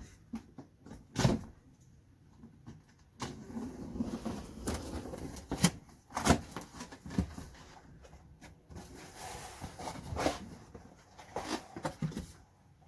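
A cardboard box being opened by hand: irregular knocks, scrapes and rustles of cardboard and packing tape as the tape is worked loose and the flaps are pulled open.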